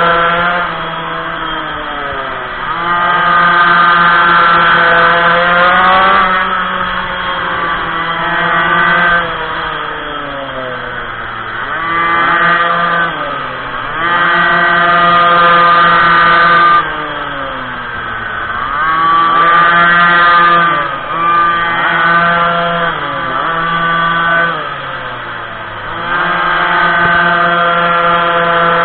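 Minimoto (pocket bike) small two-stroke engine revving out along the straights and falling off into the corners, over and over. The pitch climbs, holds high for a few seconds, then drops away in repeated cycles, and one burst of revs cuts off abruptly about two-thirds of the way through.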